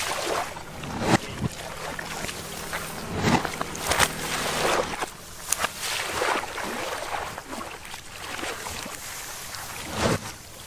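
Canal water sloshing and splashing around a worker wading among floating green coconuts and heaving bunches of them, with several sudden splashes or knocks spread through.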